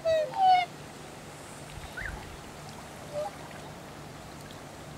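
Black swans calling: two loud, short, musical honks right at the start, then a few fainter short calls around two and three seconds in.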